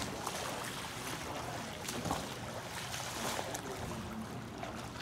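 Water splashing from a swimmer's arm strokes and kicks in a swimming pool, an even wash with irregular sharper splashes.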